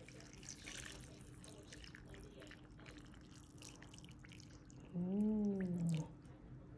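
Pho broth poured from a plastic container into a bowl of meat and noodles, a faint trickling splash. About five seconds in, a person makes one short vocal sound, rising and then falling, lasting about a second.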